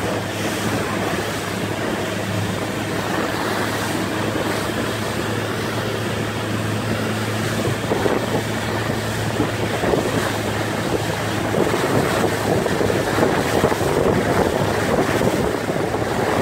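Motorboat's outboard engine running steadily at speed under load, towing an inflatable tube, with a low constant hum beneath the rush of wake, spray and wind on the microphone.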